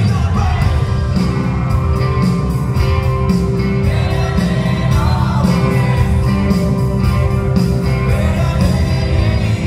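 Live rock band playing: a man sings over a Roland keyboard, electric guitar and a drum kit with a steady beat.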